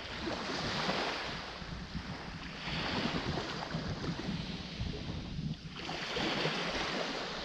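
Small waves washing up onto a sandy beach, the hiss swelling and fading about three times.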